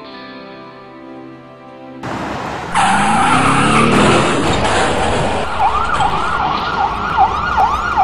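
Soft, sad music for about two seconds, cut off by an ambulance rushing past; a few seconds later its siren starts yelping in fast rising-and-falling sweeps, two to three a second.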